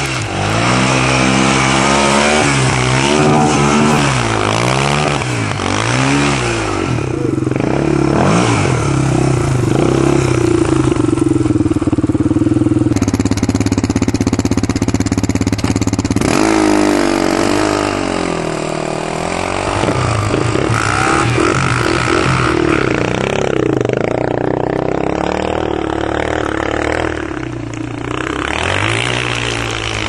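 Raptor ATV engine being revved up and down repeatedly while riding through snow, its pitch rising and falling every second or two.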